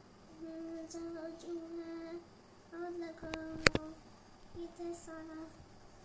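A child singing a tune in three short phrases of long held notes, with one sharp click a little past halfway.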